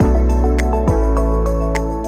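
Background music: a soft electronic track with held keyboard chords, a deep bass note and a regular beat.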